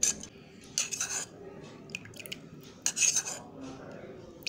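A spoon scraping and clinking against a bowl in several short strokes while stirring a thick mixture of rice water, aloe vera gel and coconut oil.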